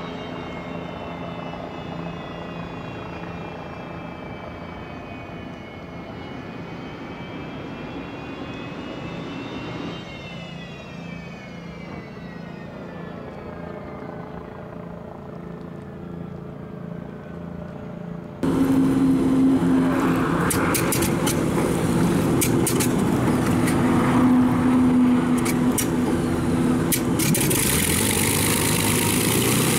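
Unlimited hydroplane's Lycoming T55 turbine engine running, with a whine that sinks and rises in pitch. About 18 seconds in it turns louder, with a deeper drone and crackling, as the boat gets under way on the water.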